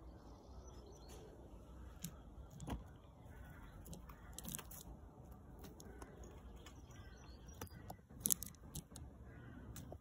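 Light clicks and taps among gravel as a blackbird hops and pecks at birdseed on the stones, loudest about eight seconds in, with faint high bird twittering behind.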